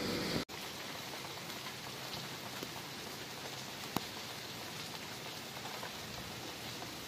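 Steady rain falling, an even hiss with scattered drop taps and one sharper tap about four seconds in. A brief louder noise cuts off abruptly about half a second in.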